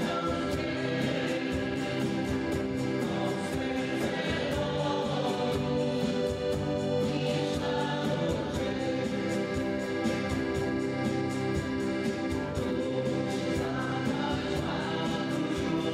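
A live band playing a song: several voices singing together over electric guitars and keyboard, with a steady beat.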